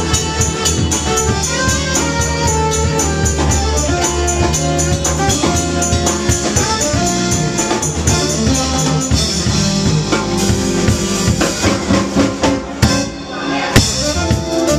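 Live rock band playing, with a drum kit driving the beat and a fast steady high ticking over it. Near the end the music drops briefly, then comes back in on a sharp hit.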